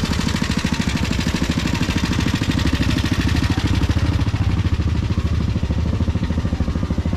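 A small engine idling steadily with a rapid, even pulse.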